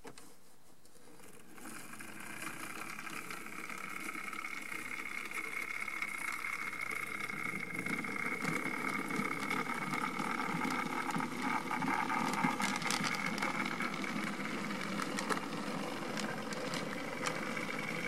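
Model train running along the layout track: a steady electric motor whine with a rumble and scattered clicks from the rolling locomotive and hopper cars, starting about a second and a half in and growing louder as the train comes closer.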